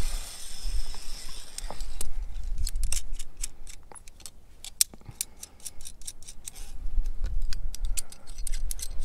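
Climbing carabiners clinking and clicking on a wire cable and bolt anchor as they are unclipped and clipped past the anchor, with a quick run of sharp metallic clicks through the second half. There is a low rumble underneath at times.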